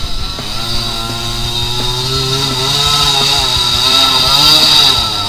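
Dirt bike engine revving, its pitch rising and falling, while the bike is stuck in a rut and being pushed out.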